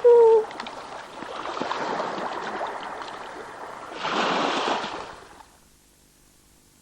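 Water and wind noise from a moving boat, swelling louder about four seconds in and then falling away to near silence. A short, loud pitched tone sounds at the very start.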